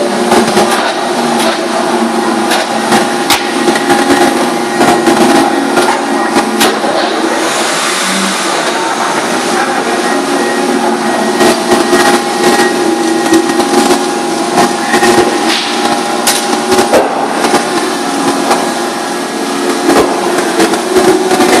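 Industrial paper-trimming machinery running with a steady, many-toned hum. Frequent sharp knocks and clatters come from stacks of paper and a metal guide bar being pushed about on the machine's table.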